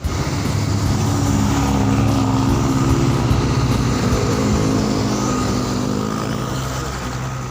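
Bus passing close by: diesel engine drone and tyre noise that swell over the first couple of seconds and then slowly fade as it moves away.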